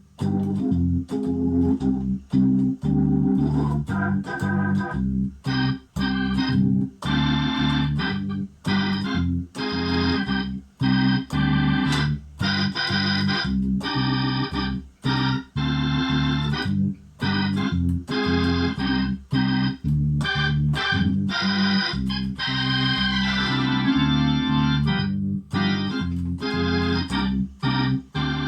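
Crumar Mojo Classic tonewheel-style drawbar organ played through a Leslie 2103mk2 rotary speaker: full chords over a held bass line, with many short stabbed chords and brief gaps between them. Near the end comes a busier warbling run in the upper notes.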